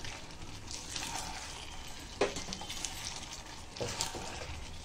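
Fried chicken pieces being stirred into bubbling gravy in a frying pan with a silicone spatula: a steady sizzle, with a few sharp knocks of the spatula against the pan, the loudest about two seconds in.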